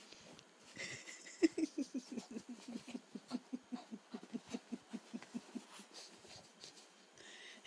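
Shih tzu snorting and huffing in a quick regular run, about five short huffs a second for some four seconds, with her face pushed into a pillowcase.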